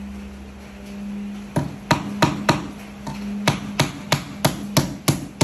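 Wooden-handled hammer striking the corner of a wooden box. About a second and a half in comes a run of four sharp blows, then after a short pause a steady run of about three blows a second. A steady low hum sits underneath throughout.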